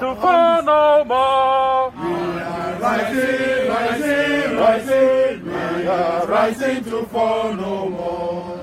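A group of protesters singing a chant together. In the first two seconds one close voice sings short, clear phrases; after that many voices sing together in a fuller mass of sound.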